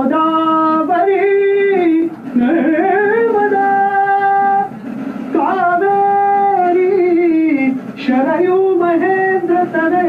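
A woman singing slow, drawn-out melodic phrases, holding long notes that waver in pitch. There are about four phrases, each roughly two seconds long, with short breaths between them.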